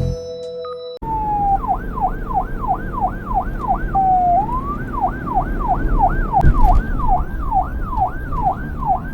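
Police-style electronic siren in a fast yelp, sweeping up and down about three times a second, with one slower falling-and-rising whoop about four seconds in, over a low rumble. It starts about a second in after a few notes of music and cuts off abruptly at the end.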